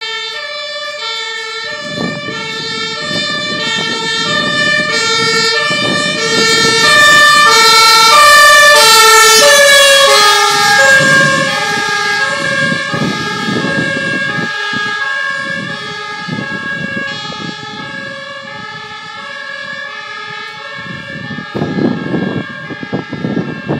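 German two-tone emergency siren on a passing ambulance. The alternating tones grow louder, drop in pitch as the vehicle goes by about ten seconds in, and then fade as it drives away, with road noise underneath.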